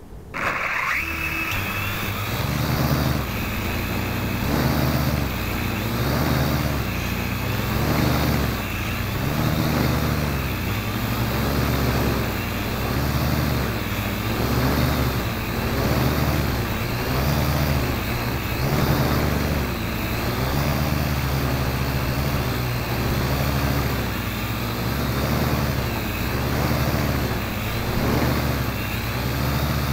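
Parrot AR.Drone quadcopter's four electric motors and propellers spinning up about half a second in with a brief rising whine, then running loudly and steadily as it lifts off and hovers, heard close up from a camera mounted on the drone. The propeller hum rises and falls in pitch roughly once a second as the motors change speed.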